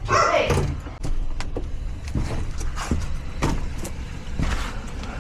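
Low steady vehicle rumble with a series of scattered knocks and clicks, and a short louder sound at the very start.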